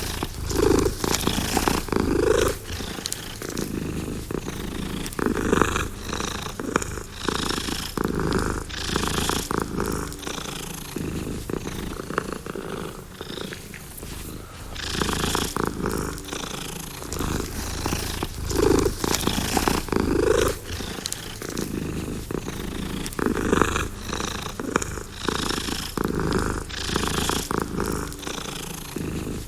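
Domestic cat purring steadily, the purr swelling and fading with each breath about every one and a half to two seconds.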